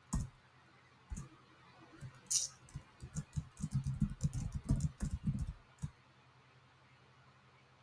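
Computer keyboard keystrokes: a few separate key presses, then a quick run of typing about three seconds in that stops shortly before six seconds.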